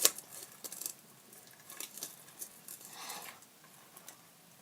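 Glue-and-borax slime being stirred in a bowl with a utensil: a sharp clink at the start, then faint scattered clicks and taps.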